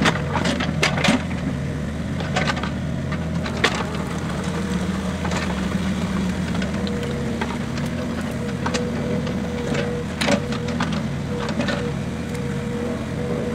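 Small tracked excavator's diesel engine running steadily as it digs, with sharp clanks and knocks from the bucket and boom, several near the start and one about ten seconds in. A steady whine joins about halfway through.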